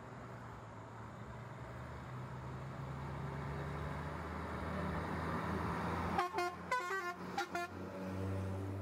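Vehicle engines idling with a steady low hum, then a vehicle horn sounds a quick run of about four short toots a little over six seconds in.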